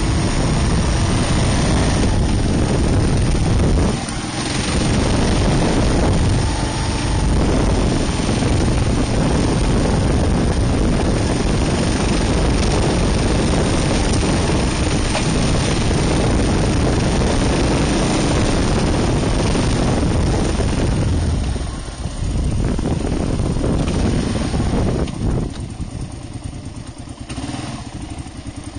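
Kawasaki KLR650's single-cylinder four-stroke engine running as the bike is ridden, with brief dips in level about 4 and 22 seconds in. About 25 seconds in it drops to a quieter, evenly pulsing putter as the bike slows.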